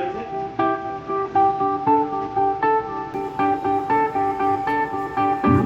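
Music: a melody of plucked guitar-like notes, about two a second, played for a speaker sound test.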